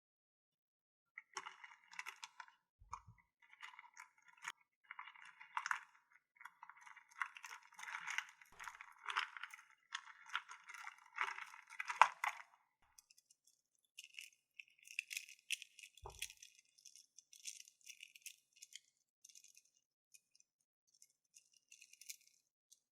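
Small crystals clinking and rattling against one another in quick clusters of light clicks. The rattling is dense for the first dozen seconds, with one sharp click near the end of that stretch, then turns sparser and lighter.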